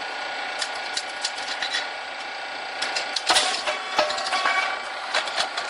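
Puffed rice cake machine running: a steady mechanical whine with scattered light ticks, then a louder run of sharp clicks and clatter from about three seconds in.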